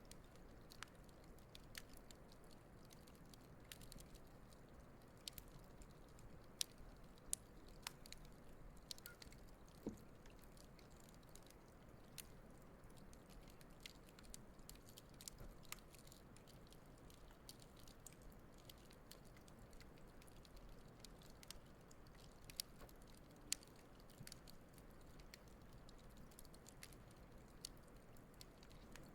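Wood campfire burning, crackling with irregular sharp pops and snaps over a faint low hiss.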